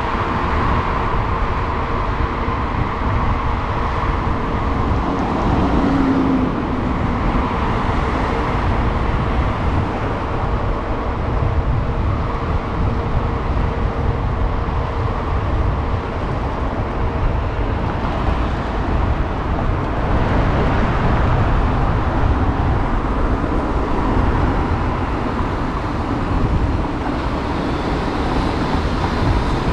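Wind rushing over the microphone of a moving bicycle, mixed with the steady noise of car traffic on the road alongside.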